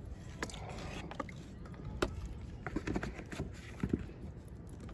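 Minnow trap and container being handled: scattered light clicks and knocks over a low, steady rumble.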